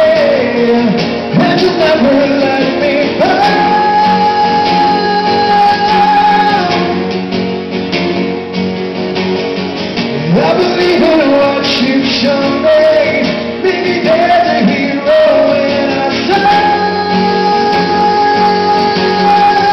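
Live acoustic rock song: a male singer holding long notes, twice, over two strummed acoustic guitars.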